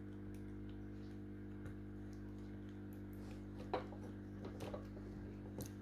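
Small clicks and taps from handling a robot's circuit board and plastic chassis, the sharpest a little under four seconds in, with a few lighter ones after it. A steady low electrical hum runs underneath.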